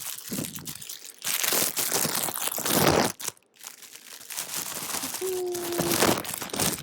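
Plastic packaging crinkling and rustling in two long spells as a merch t-shirt is unwrapped and handled.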